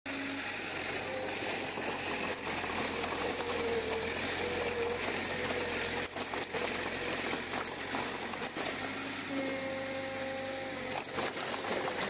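Komatsu crawler bulldozer at work: its diesel engine running steadily, with a faint whine that comes and goes and a few sharp metallic clanks.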